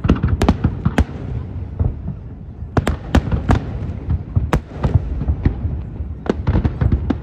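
Fireworks display: a dozen or so sharp bangs at irregular intervals over a continuous low rumble of further bursts, with a short lull early on in the bangs.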